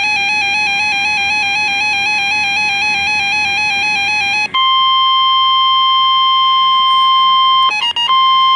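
An electronic alert warbling rapidly between two pitches. About four and a half seconds in it gives way to the steady 1050 Hz warning alarm tone of a NOAA Weather Radio broadcast, briefly broken up near the end. Together these signal an incoming weather warning.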